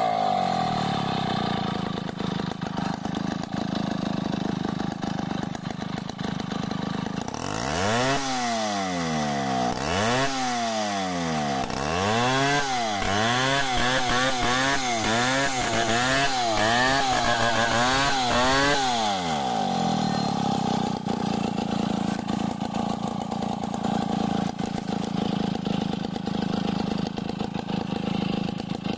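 Stihl 070 two-stroke chainsaw idling, then running at high revs through a log for about eleven seconds, its pitch rising and falling roughly once a second as the chain bites and frees, before dropping back to a steady idle.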